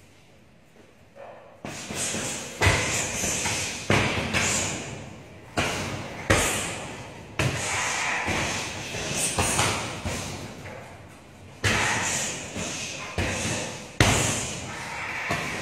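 Strikes landing on a heavy punching bag, about one a second, starting after a quiet first second and a half. Each is a sharp thud that rings on in a large echoing hall.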